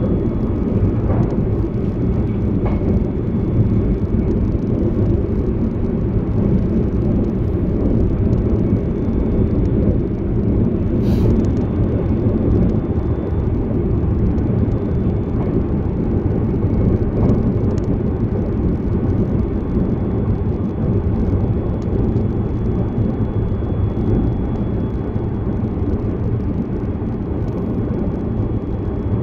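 Inside the passenger cabin of an E657 series electric express train running at speed: a steady low rumble of wheels and running gear on the rails, with a faint high steady tone above it.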